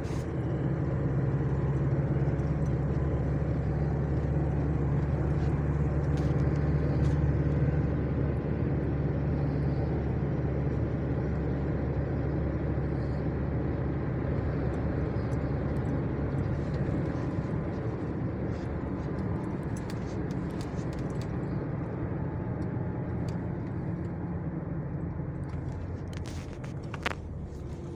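Motor vehicle engine running with steady road noise, a low drone that slowly fades over the second half, with a few sharp clicks near the end.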